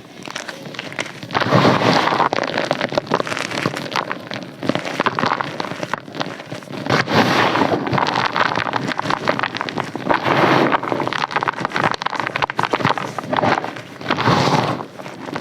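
Dense, crackly crunching, swelling into several louder bursts a few seconds apart.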